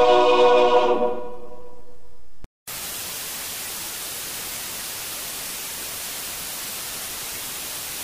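A held musical chord fades out about a second in; after a brief dropout, the steady hiss of analog TV static follows, the sound of a television receiving no signal once the station is off the air.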